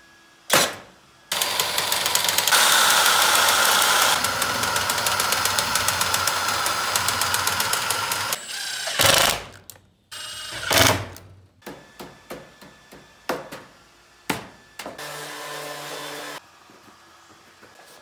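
Red cordless power tools fastening hardware cloth and hinges to treated-lumber panels: a single sharp shot about half a second in, then a long run of rapid mechanical hammering lasting about seven seconds. Shorter bursts of a tool motor whirring and clicking follow, with a cordless driver driving screws through a steel strap hinge.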